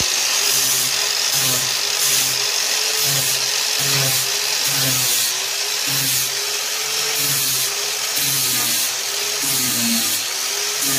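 Corded angle grinder running continuously as its disc grinds down body filler on a fiberglass golf-cart cowl, with a high whine and a lower note that wavers slightly as the disc bears on the surface.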